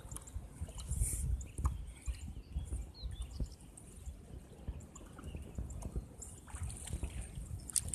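Water lapping and trickling against a bamboo raft on a river, over a low, uneven rumble.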